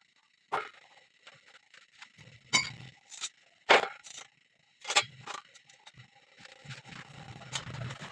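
Several sharp knocks of iron pieces being struck or handled, about six separate hits in the first five seconds, followed from about six and a half seconds in by a rough, continuous crackling rumble.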